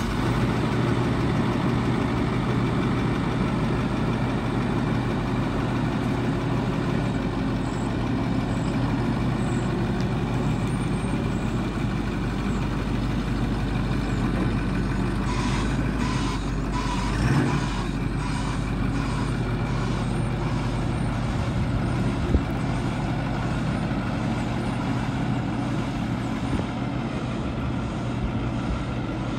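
2008 Ford F350's 6.4-litre Power Stroke V8 turbo diesel idling steadily. Faint repeated beeping comes in briefly about halfway through.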